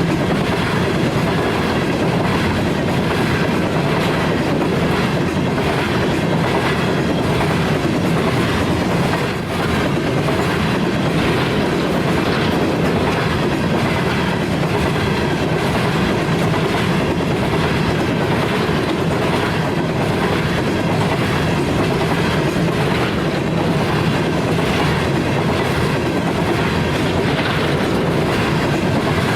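Railroad cars of a long freight train rolling steadily past, their wheels clicking in a regular clickety-clack over the rail joints.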